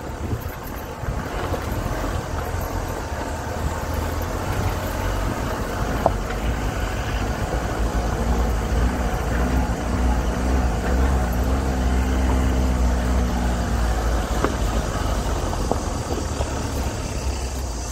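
Car engine running with a steady low rumble under an even wash of noise; a faint wavering hum joins in for several seconds around the middle.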